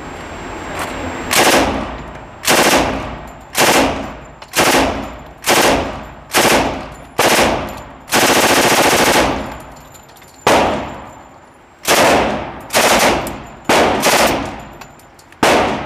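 1928 Thompson submachine gun firing .45 ACP on full auto in about fourteen short bursts, with one longer burst of over a second about eight seconds in. Each burst ends in a short echo.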